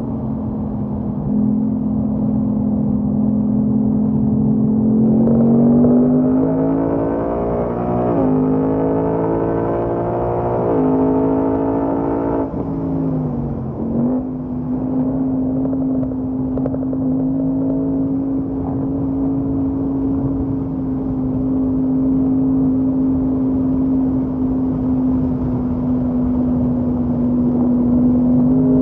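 Ford Mustang Mach 1's 5.0-litre V8 heard from inside the cabin on track: it runs at a steady note, pulls up in pitch under acceleration from about five seconds in, drops sharply a little past twelve seconds, then holds a steady note again and starts to climb near the end.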